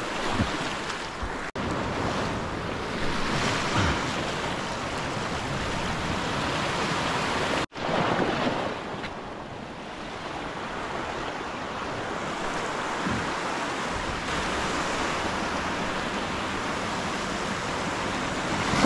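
Ocean surf washing on the shore, a steady rush of water with wind buffeting the microphone. The sound drops out for an instant twice.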